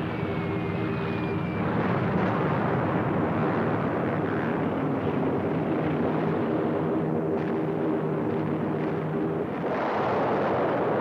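Piston-engined warplanes droning steadily, with a slightly falling whistle in the first second or so. A heavier rushing rumble of bomb bursts swells near the end.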